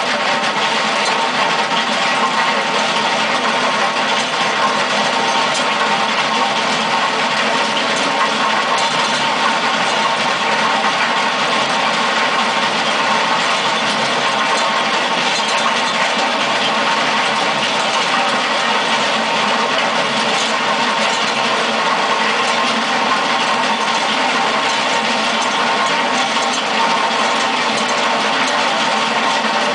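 Simex T600 planer attachment on a Mustang 2076 turbo skid steer, its cutting drum grinding a trench through concrete with the skid steer's engine running hard. A continuous, steady grinding over the engine, with no pauses.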